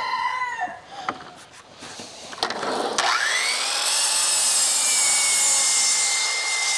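Kobalt sliding compound miter saw switched on about three seconds in, its motor whining up to speed and holding a steady high pitch. About a second later the blade starts crosscutting a yellow pine 2x8, adding a loud hiss of cutting noise.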